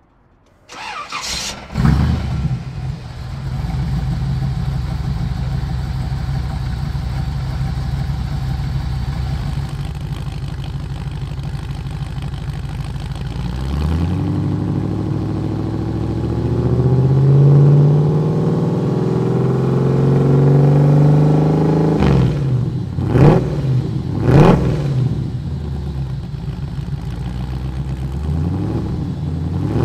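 A 1971 Chevrolet C10's 350 cubic inch small-block V8 is cranked by the starter and catches about two seconds in, then idles steadily. About halfway through, the revs rise and are held up for several seconds. Near the end the throttle is blipped sharply several times.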